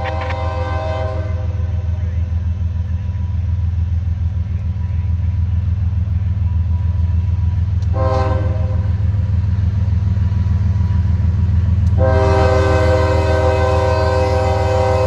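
Nathan K5HL air horn on a CSX GE ES44AC locomotive, weird-sounding, blowing a long blast that ends about a second in, a short toot about eight seconds in, then a long blast from about twelve seconds on: the pattern of a train sounding for a grade crossing. A steady low rumble runs underneath.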